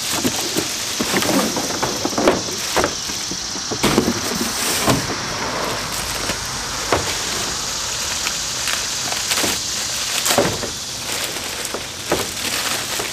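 Clear plastic packaging bag crinkling and rustling as it is handled and pulled off a new chainsaw, with a few louder crackles along the way.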